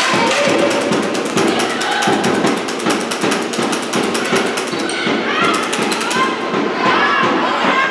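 Rapid, continuous sharp claps and knocks echoing around a sports hall during a handball match, with voices calling out over them in the second half.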